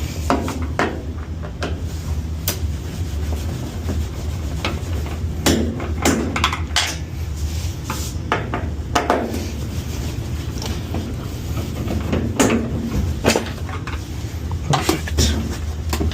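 Irregular clatters and knocks of a Samsung top-load washer's panels and parts being handled during disassembly, over a steady low hum.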